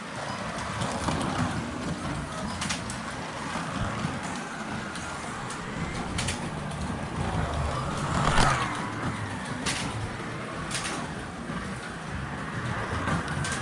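Carrera Digital 132 slot cars lapping the track, their small electric motors whining up and down in pitch as they pass, with occasional sharp clicks; the loudest pass comes about eight seconds in.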